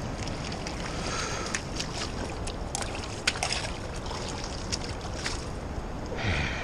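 Steady rush of river water at the bank, with a few sharp splashes and knocks, the loudest about three seconds in, as a walleye is grabbed by hand and lifted out of the shallows.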